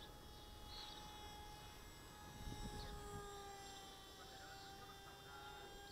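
Faint, steady whine of a small electric RC plane's brushless motor and propeller (Eachine 2204 2300KV) flying overhead, its pitch sinking slightly, with a low rumble of wind on the microphone.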